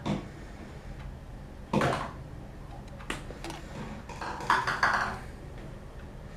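Trading cards and their packaging being handled: a few short rustles and taps, the busiest cluster a little past the middle, over a low steady hum.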